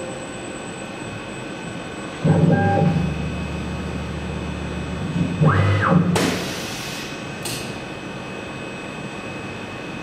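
Skyfire SVM2 CNC mill's BT30 automatic tool changer cycling through a tool change. A motor hum starts suddenly about two seconds in, and a whine rises and falls near its end. It is followed by a sharp hiss of air about a second long and then a shorter hiss, over the machine's steady background hum.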